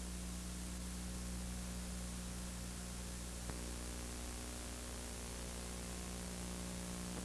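Steady hiss with a low electrical hum, the background noise of a 1980s analogue videotape recording, with no speech. A faint click about halfway through.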